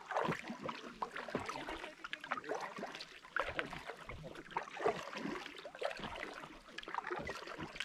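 Paddling a packraft on calm water: a paddle dipping in, with irregular splashes and water dripping and trickling off the blade.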